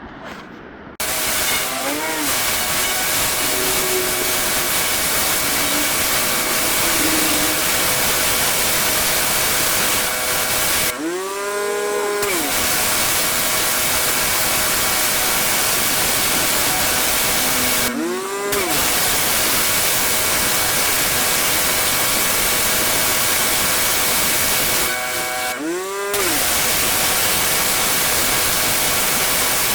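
Pressure washer spraying water with a steady loud hiss and a steady machine whine running under it. The spray cuts out briefly three times, each time with a tone that sweeps and then settles as the spray resumes.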